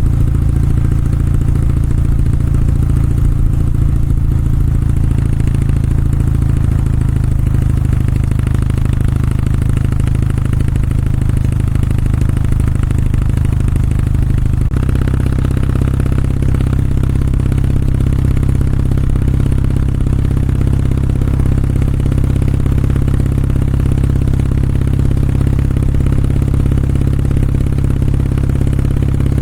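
Kawasaki W650's air-cooled parallel-twin engine and exhaust running steadily while riding, its note changing to a different engine speed about halfway through.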